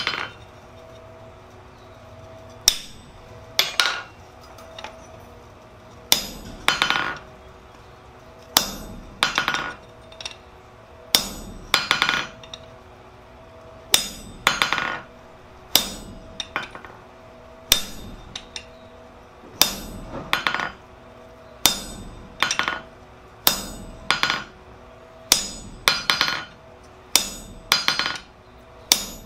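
Hammer striking a hand-held chisel set on a red-hot steel crowbar on the anvil, forging it back into shape. It gives sharp ringing blows about every one to two seconds, many followed by a quick rattle of smaller rebounds.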